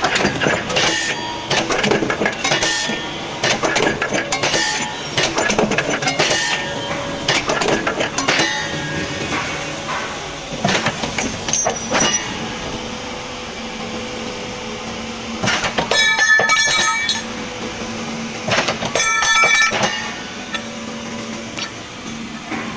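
JGX1010 CNC angle line punching machine working angle steel: a fast run of sharp metallic clanks and clinks, then a steady hum broken twice by bursts of ringing metal clangs near the end.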